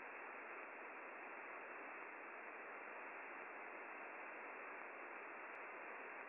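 Steady shortwave receiver static heard through a WebSDR, an even hiss cut off above the voice band, with no buzzer tone on it: the UVB-76 'Buzzer' frequency with the station silent.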